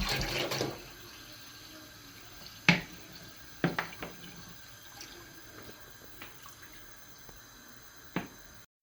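A short splash of liquid, then single sharp drips, about five spread over several seconds.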